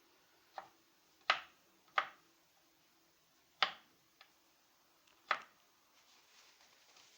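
Knife slicing onion, the blade knocking on a cutting board about six times at uneven intervals.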